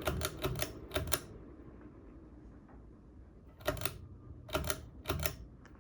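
Ceiling fan pull-chain speed switch clicking as the chain is pulled repeatedly, cycling the fan back to low speed: a quick run of clicks in the first second, then three more single pulls about a second apart near the end.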